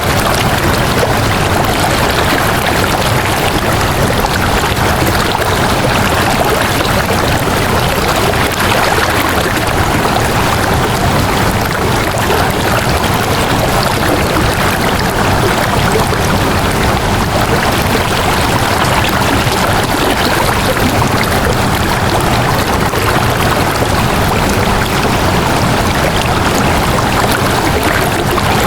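Flowing water rushing steadily and evenly, with no breaks or separate splashes.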